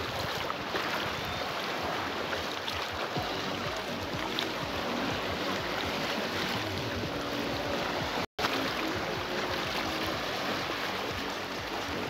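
Choppy reservoir waves washing and splashing around half-submerged driftwood stumps in the shallows, a steady rushing wash. The sound cuts out for an instant about eight seconds in.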